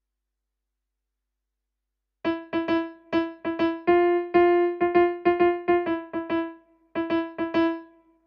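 Piano playing a choir's alto line with one hand: a single note struck again and again in a bouncy rhythm. It starts about two seconds in, after dead silence.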